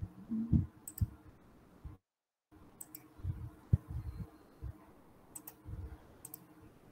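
Scattered clicks and soft knocks of a computer mouse and keyboard being used, picked up faintly by a video-call microphone. The audio cuts out completely for about half a second around two seconds in.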